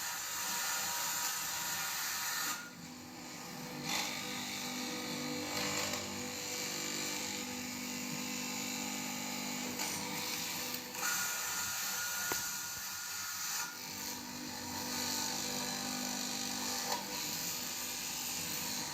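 Electric fabric cutting machine running and cutting through cloth, a steady motor-and-blade noise that dips briefly about three seconds in.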